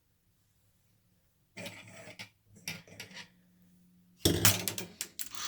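Lego plastic parts clicking and rattling in irregular bursts, with a louder cluster of clatter about four seconds in.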